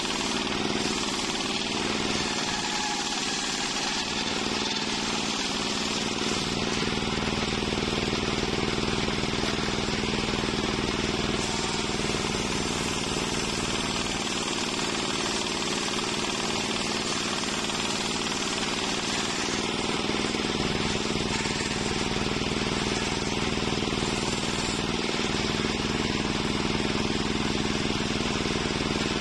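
Large table-mounted circular saw (serkel) running steadily and ripping planks of waru (sea hibiscus) timber, a continuous hum from the saw's drive under the hiss of the blade cutting wood.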